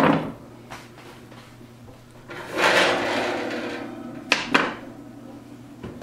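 Oven rack and door being handled. There is a clatter at the start, then a long metal scrape about two and a half seconds in. Two sharp knocks follow just after four seconds, and another knock near the end as the oven door swings shut.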